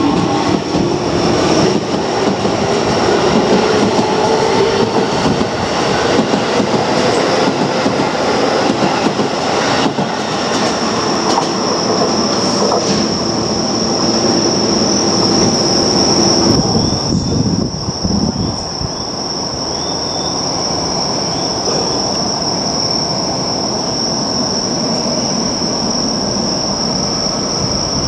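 Keio Line electric train running on the rails. A motor whine rises in pitch for the first few seconds as it gathers speed, then there is steady running noise that eases off about two-thirds of the way through, under a steady high-pitched whine.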